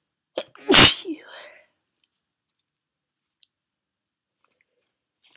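A woman sneezes once, loudly, a little under a second in, an "ah-choo" that tails off quickly.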